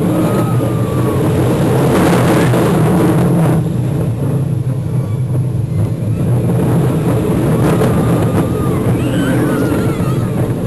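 Roller coaster train running along its track: a loud, steady rumble with wind buffeting, and a few faint thin high glides now and then.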